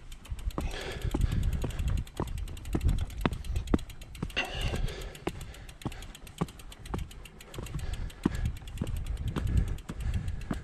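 Mountain bike being ridden over rock: wind rumble on the microphone, with a stream of sharp clicks and rattles from the bike, several a second.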